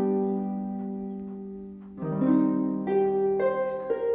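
Instrumental background music: ringing notes held in soft chords that fade slowly, with new notes coming in about two seconds in and a few more after.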